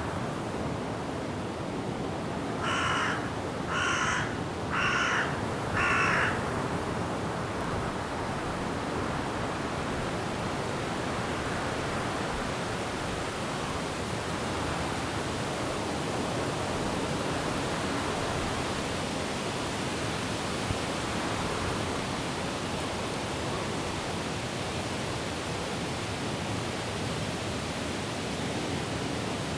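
Steady wind and rain in forest trees, with a bird giving four harsh calls about a second apart near the start.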